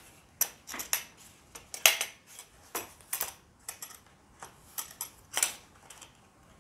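Hard plastic clacks and knocks as the DeWalt laser level's molded plastic carrying case is handled: a run of irregular sharp clicks, the loudest about two seconds in.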